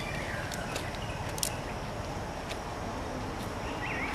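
Outdoor ambience: a steady noisy background with a few sharp clicks in the first half, and faint high chirps near the start and again near the end.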